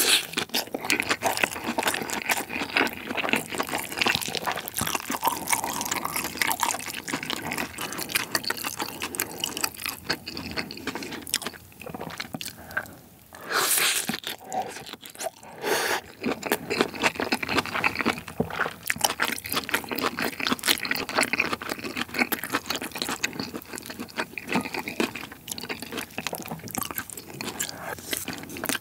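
Close-miked chewing of spicy Chinese bibimbap, a saucy fried rice with squid, webfoot octopus, mushroom and onion, eaten by the spoonful. There is a short lull about twelve seconds in, then the next spoonful goes in.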